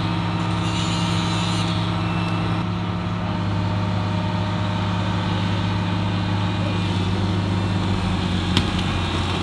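Excavator diesel engine running at a steady, unchanging speed. There is a brief hiss about a second in and a single sharp click near the end.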